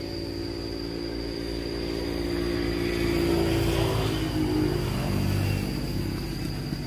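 A motor vehicle's engine passing by, growing louder through the middle and then fading.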